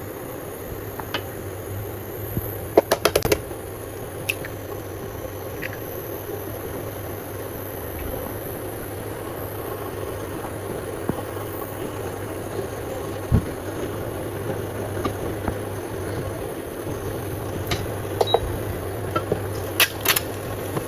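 An egg cooking in a nonstick frying pan on a stove: a soft, steady sizzle over a low hum. A few light clicks and taps come about three seconds in and again near the end.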